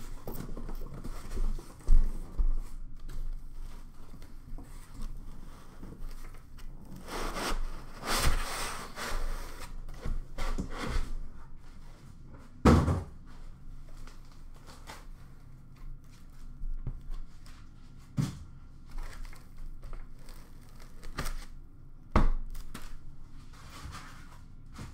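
Cardboard shipping box and foam packing being handled and opened by hand: rustling and scraping of cardboard, a longer stretch of rustling in the middle, and four sharp knocks as the packing and box are moved and set down.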